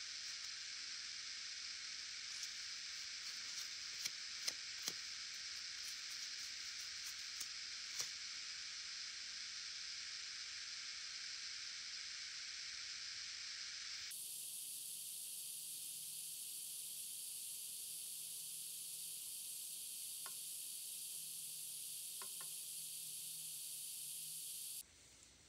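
Steady background hiss with a few faint clicks a few seconds in. The hiss changes abruptly about halfway through, growing thinner and higher, and cuts off just before the end.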